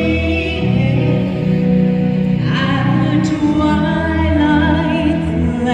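Music with singing voices over sustained low chords.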